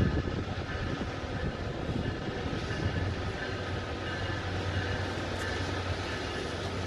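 Norfolk Southern diesel-electric freight locomotive running as it approaches out of a tunnel: a steady low engine drone that grows fuller about halfway through, with a faint on-and-off higher whine above it.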